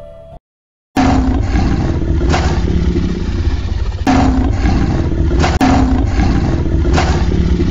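Loud recorded roaring and growling from an animatronic Tyrannosaurus rex's loudspeakers, deep and rumbling, coming in several swells. It starts suddenly after a brief silent gap about a second in.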